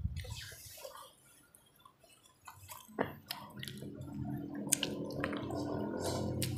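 Wet chewing and mouth smacks of a person eating rice and fish curry by hand, with sharp clicks as the fingers pick up food. About three seconds in, a low steady hum comes in and stays under the eating sounds.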